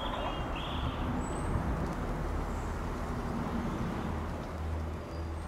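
GWR Class 165 Network Turbo diesel multiple unit approaching, its underfloor diesel engines giving a steady low drone that grows a little louder about three and a half seconds in. A few faint bird chirps sound near the start.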